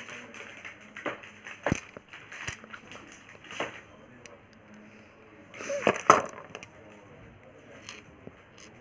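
Scattered metallic clinks and clicks with short rustles as a tractor power steering pipe and its fittings are handled and unpacked.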